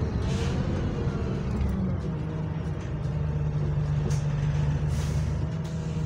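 Bus engine and drivetrain running, heard from inside the passenger saloon, with a steady low drone settling in about two seconds in and a few short air hisses.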